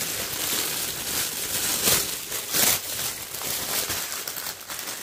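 Thin clear plastic produce bag crinkling and rustling as it is pulled open and the bok choy is drawn out of it, with a couple of louder crackles about two seconds in.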